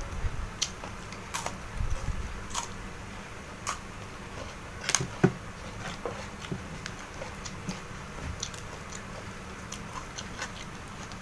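Close-up eating sounds: biting and chewing, with irregular sharp crunchy clicks, the loudest around five seconds in.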